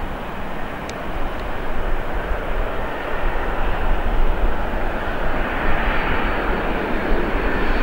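Boeing 747-400's four jet engines on final approach: a steady rushing jet noise that grows louder and brighter about halfway through as the aircraft comes closer.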